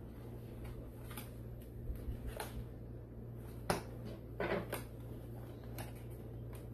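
Small cardboard box handled and set down on a stone countertop: a few scattered light taps and scuffs, the sharpest a little before the middle, over a steady low hum.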